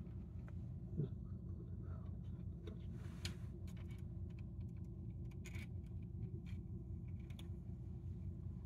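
Faint clicks and rattles of wires and a test-lead clip being handled at an electric motor's terminal box, over a steady low hum.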